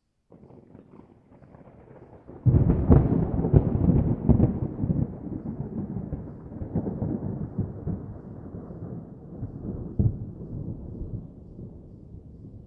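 Distant thunder: a faint low rumble, then a sudden loud crack about two and a half seconds in that rolls on with crackling and slowly fades, with one more smaller crack later.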